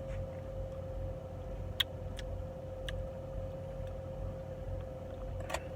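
Knife and fork clicking against a plate a few times while a waffle is cut into pieces, over a steady low background rumble with a faint constant hum.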